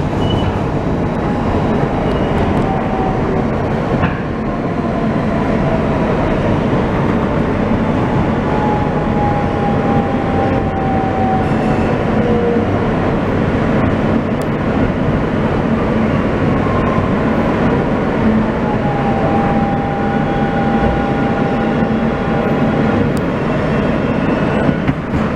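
Subway train rumbling steadily on the track, with faint whining tones that slide slowly in pitch.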